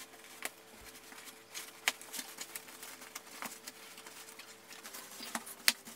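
Handling noise of a pram hood being fitted: fabric rustling with a few scattered small clicks as its plastic clips are pushed into the frame.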